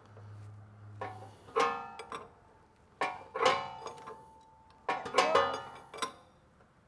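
Wrench clinking against steel hydraulic hose fittings as they are tightened: several separate sharp metallic clinks, each ringing briefly.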